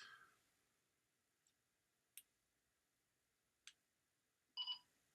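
Quiet room with a few faint sharp clicks, then a short electronic double beep about four and a half seconds in.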